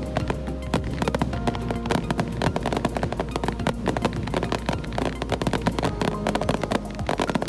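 Fireworks going off in quick, dense crackles and bangs, under background music with held notes and a steady low drone.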